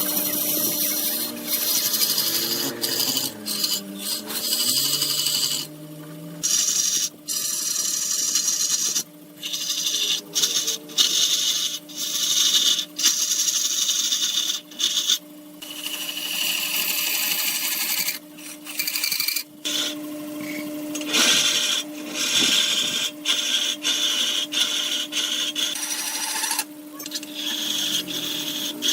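Wood lathe running with a steady hum while a turning tool cuts and scrapes the spinning wood with a hissing, rasping sound, in passes broken by many brief gaps.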